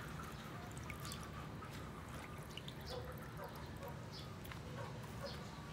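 Water dripping and soft wet squishing as raw chicken pieces are squeezed out by hand and dropped into a stainless steel bowl. Scattered small drips and ticks over a low steady background noise.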